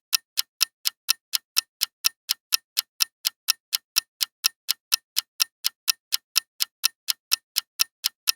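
Quiz countdown-timer clock-tick sound effect ticking evenly at about four ticks a second.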